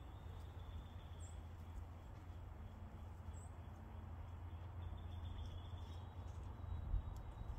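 Faint steady low rumble of background noise, with two tiny high chirps about two seconds apart.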